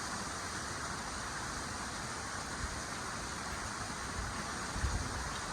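Strong wind blowing steadily, with low rumbling gusts buffeting the microphone, one stronger gust near the end.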